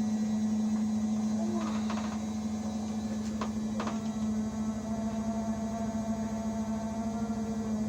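Old Indesit washing machine running with a steady low hum. Two sharp clicks come a little past halfway, and then a fainter higher whine joins the hum.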